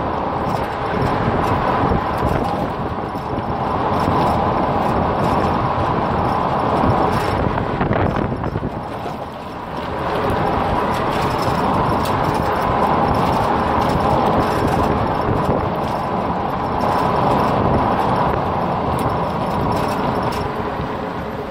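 All-stock exhaust of a 2003 Chrysler Town & Country's 3.8-litre V6, heard at the tailpipe while the van drives, mixed with road and wind noise. The level dips briefly about three seconds in and again about nine seconds in, then climbs back.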